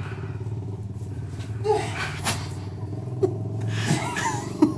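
A motor running steadily in the background, with several sharp knocks and scrapes as a tree branch is jabbed down into a clogged toilet to break up the blockage.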